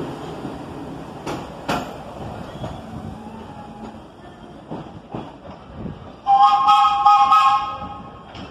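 Subway train running with a steady rumble and a few sharp wheel clicks over the rail joints, then its horn sounds once, a steady multi-tone blast of about a second and a half near the end.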